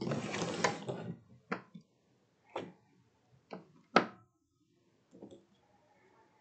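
Acrylic paint tubes clattering as they are rummaged from a pile for about a second, then set down on a tabletop one at a time: four sharp knocks over the next few seconds, the last the loudest.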